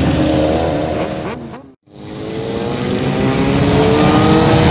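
Engines of a long column of motorcycles and quad bikes riding past. The sound fades out briefly about one and a half seconds in, then returns as the engines gently rise in pitch while accelerating.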